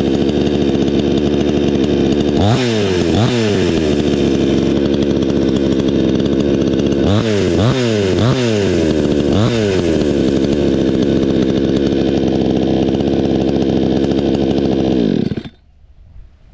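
Yasuka YSK 6800 XT-22L two-stroke chainsaw running unloaded, with about six quick throttle blips, then switched off near the end, the engine stopping abruptly.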